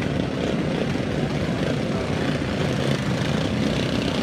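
Several racing go-karts' small engines buzzing together in a steady drone as the pack circles a dirt track.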